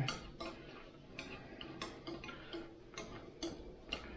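Light, irregular clicks and scrapes, about two a second, of a cleaning patch and gloved hands working in a rifle's chamber, wiping out leftover solvent and crud.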